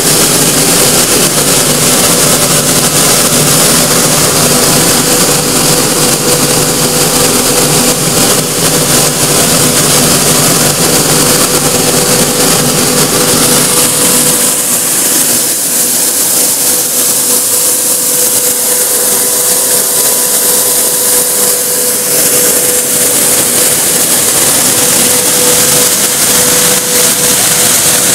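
Machinery of a filler masterbatch granulating line running steadily, with a vibrating sieve screening the pellets: a loud, even machine hum with one constant tone over a continuous hiss. The deepest part of the hum drops away about halfway through.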